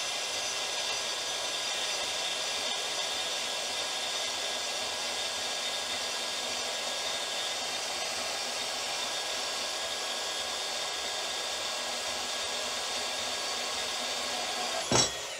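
Milwaukee M18 Fuel deepcut cordless bandsaw running at its top speed setting, its 8/10-tooth thick-metal blade cutting through quarter-inch-wall steel tube: a steady whir with a constant high whine. Near the end a single sharp knock as the cut finishes, then the motor winds down and stops.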